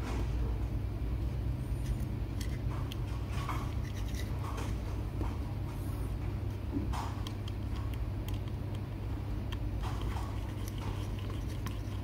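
Scattered small clicks and scrapes of a metal laptop hard-drive caddy and its mounting bracket being handled and fitted, over a steady low hum.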